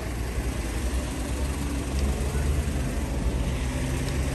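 A car engine running close by, a low steady hum that strengthens about a second and a half in, over general street noise.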